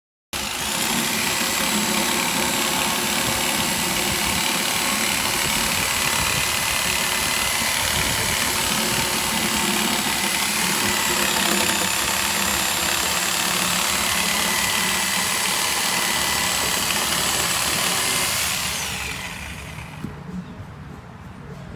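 A motor running steadily at a constant pitch. It starts abruptly, and about three-quarters of the way through it fades down to a lower, quieter sound.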